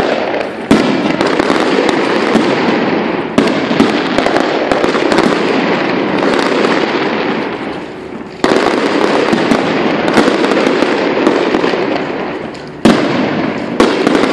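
Fireworks display: aerial shells bursting overhead with dense, continuous crackling. About five sudden loud bangs each swell the racket, and it fades off between them.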